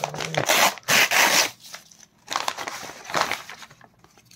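Brown kraft-paper mailer crinkling and rustling as it is handled and pulled open by hand, in two loud bursts of about a second each, the second starting about two seconds in.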